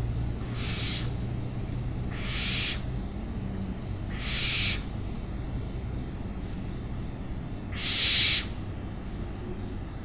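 Owl giving four short, hoarse, hissing screech calls, each about half a second long, spaced unevenly, with the last two the loudest. Beneath them runs a steady low rumble.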